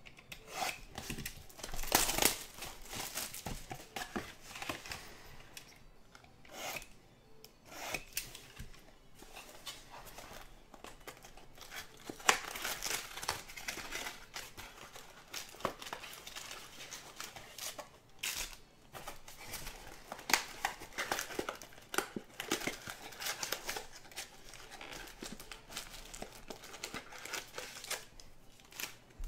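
Plastic shrink wrap on a trading-card hobby box being slit with a box cutter and torn off. The loudest rip comes about two seconds in. Crinkling and rustling follow as the cardboard box is opened and the foil packs are handled.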